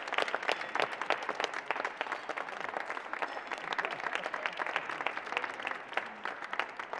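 A small group of people applauding, a dense patter of hand claps that thins slightly toward the end.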